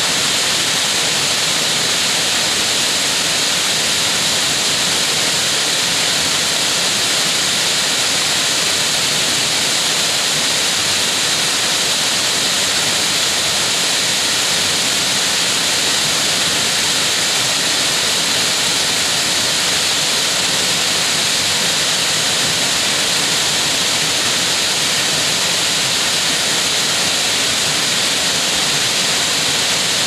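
Waterfall pouring: a loud, steady rush of falling water, heavy on hiss, that never lets up.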